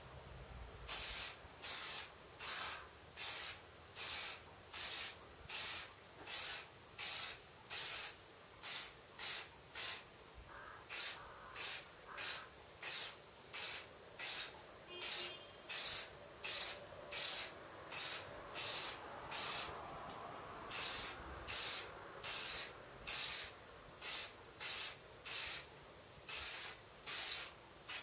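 Primer being sprayed onto a wooden gun stock in short hissing bursts, about one and a half a second, with a brief pause about two-thirds of the way through.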